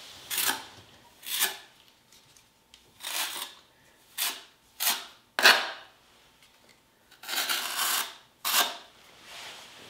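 A small notched trowel scraping through thin-set mortar in about nine short, uneven strokes, the longest one about three-quarters of the way through.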